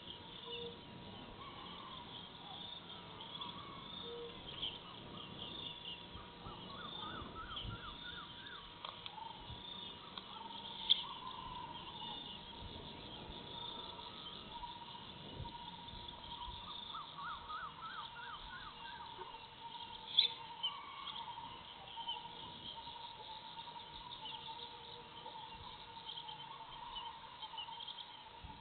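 Wetland dusk ambience: a dense, high chirring of insects with birds calling. Twice a bird gives a run of repeated notes that climbs in pitch over a couple of seconds. Two sharp clicks stand out, about eleven and twenty seconds in, over a faint steady thin tone.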